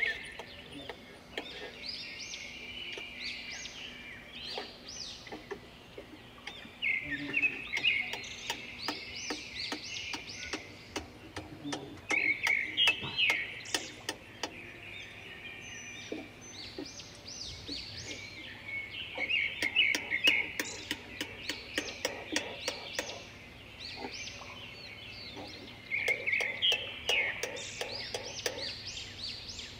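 A songbird singing the same short phrase of quick, high notes over and over, about every six or seven seconds. Light knocks and taps from woodworking fall between and under the phrases, thickest in the middle and near the end.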